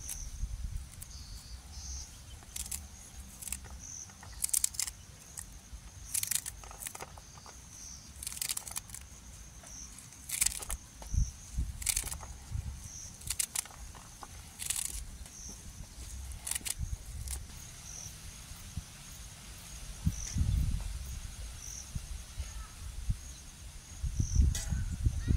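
Rural outdoor ambience: a short high-pitched chirp repeats about once a second, with scattered brief hissy crackles and a few low thumps near the end.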